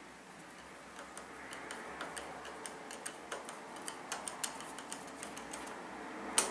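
Light, irregular metallic clicks and ticks, about three or four a second, as a hex key turns out the pivot pin of a Kawasaki Z750R brake lever and the lever shifts on it, with one sharper click near the end.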